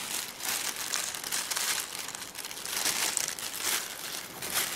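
White shoebox tissue paper crinkling and rustling as it is handled, in irregular rustles with no steady rhythm.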